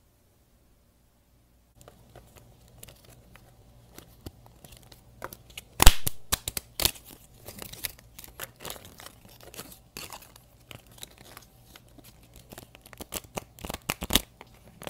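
Near silence for about two seconds, then a stack of cards being flipped and riffled through by hand: a long run of quick papery flicks and snaps, loudest about six seconds in, with a rapid flurry near the end.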